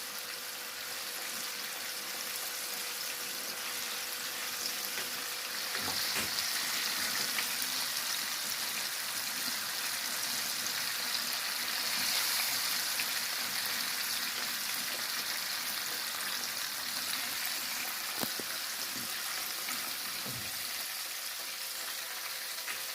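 Chicken pieces deep-frying in hot oil: a steady sizzle with fine crackling, swelling louder about a quarter and halfway in, with a few light clicks of utensils.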